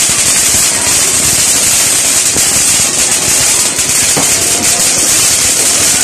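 A ground fountain firework spraying sparks: a loud, steady hiss with dense crackling.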